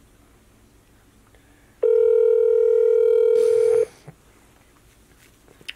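Outgoing-call ringback tone from a smartphone's speaker: one steady ring lasting about two seconds while the call waits to be answered. A brief rustle of the phone being handled follows near the end of the ring, then a couple of faint clicks.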